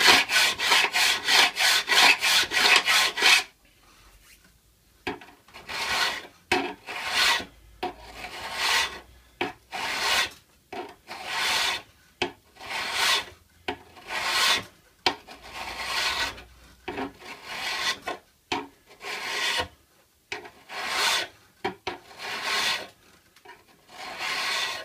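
Hand file rasping along the steel edge of a card scraper clamped in wooden blocks, jointing the edge flat and square. Quick, evenly spaced strokes for the first three seconds or so, then after a short pause slower, separate strokes about one a second.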